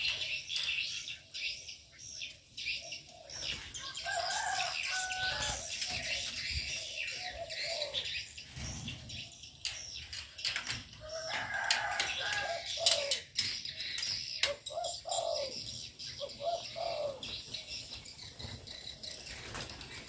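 Birds in an aviary: doves cooing in low, gliding calls, with wings flapping and small birds chirping throughout. The cooing bunches up about a quarter of the way in and again from about halfway through.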